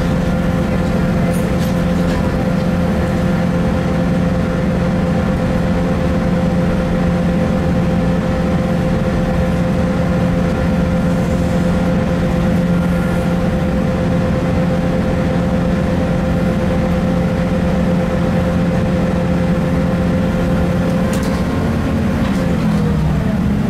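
Class 165 diesel multiple unit heard from inside the carriage: the underfloor diesel engine runs at a steady note over wheel and track rumble. A little before the end, the engine note dips and settles at a different pitch.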